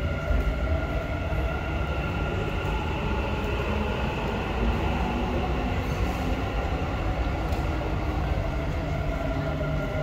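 Dubai Metro train running at the platform behind the screen doors: a steady rumble with an electric motor whine, one tone of which slides lower near the end as the train pulls in.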